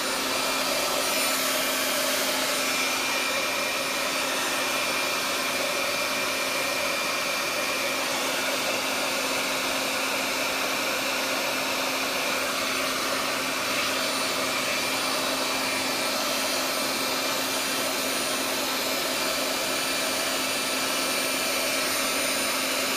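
Hair dryer fitted with a diffuser attachment, running steadily while drying curly hair: a continuous rush of air over a steady motor hum.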